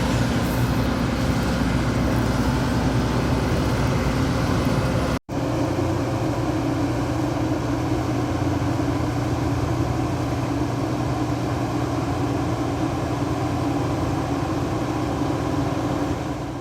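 Combine harvester running steadily. The sound cuts out for an instant about five seconds in and comes back with a slightly different tone.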